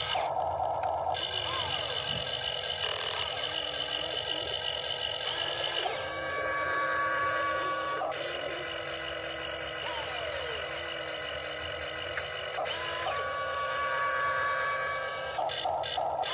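Huina 1592 RC excavator's small electric motors and gearboxes whining as it digs sand and slews its cab, the pitch shifting as different functions start and stop. A brief loud burst of noise about three seconds in.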